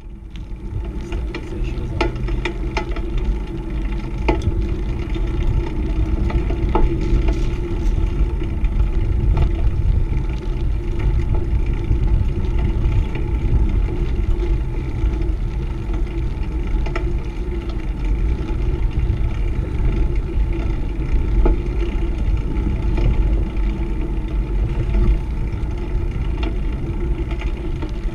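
A beach cruiser bicycle rolling along an asphalt street, with steady wind rumble on the action camera's microphone and tyre noise throughout. Occasional short clicks and rattles come from the bike over bumps.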